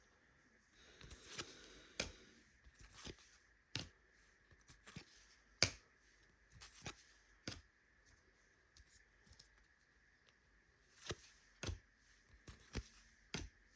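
Trading cards being handled and flipped through one by one: irregular sharp clicks and snaps as cards are slid off the stack and set down, with a brief rustle about a second in.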